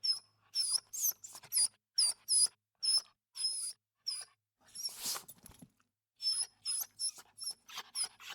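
A rapid series of short, high-pitched squeaks, each bending slightly in pitch, with one harsher, noisier squeak about five seconds in.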